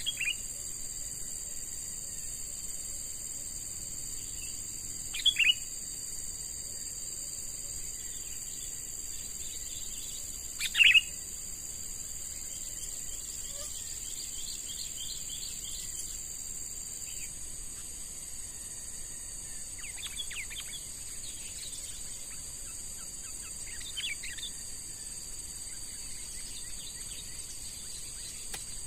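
A young sooty-headed bulbul (kutilang) calling: short, sharp calls near the start, twice about five seconds in and loudest about eleven seconds in, then softer runs of quick notes. A steady high insect drone runs underneath.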